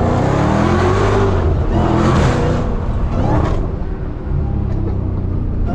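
Supercharged 6.2-litre V8 of a Dodge Charger SRT Hellcat accelerating, the engine pitch rising and falling several times and easing off about four seconds in.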